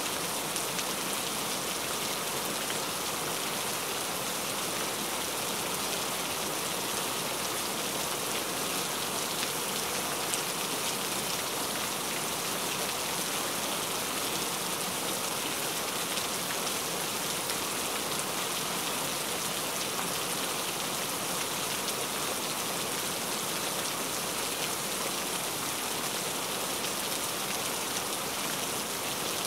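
Steady rain falling: an even, unbroken hiss with a fine patter of individual drops.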